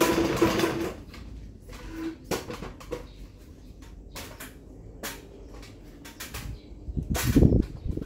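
Kawashuki KS-515 15-watt mini ceiling fan running: a steady low hum with irregular clicks and ticks. About seven seconds in, a gust of the blades' airflow buffets the microphone up close.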